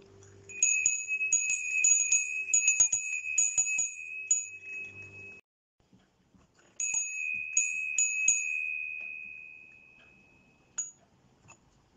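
A small hanging wind bell ringing, its clapper striking it again and again in two bouts with a short pause between, giving one high clear tone. The ring dies away slowly after the second bout, with one last light tap near the end.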